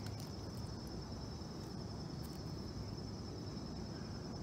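Insects trilling steadily at a high pitch, a continuous summer drone.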